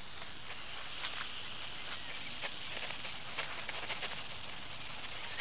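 Steady high-pitched hiss of outdoor natural ambience that grows a little stronger about a second and a half in, with faint scattered ticks.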